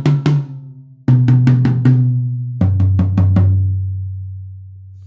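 Drum kit toms, fitted with dampening rings and with the snare wires switched off, played as a descending run: several strokes on a high tom, then several on a mid tom about a second in, then several on the floor tom about two and a half seconds in. The low floor tom rings on and slowly fades.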